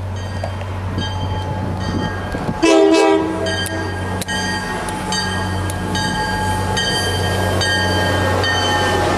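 MBTA EMD GP40MC diesel-electric locomotive approaching and passing with its engine droning, sounding one short horn blast about three seconds in. A bell pings steadily about twice a second.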